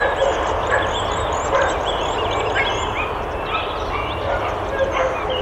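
Many boarding-kennel dogs barking at once, their barks overlapping without a pause.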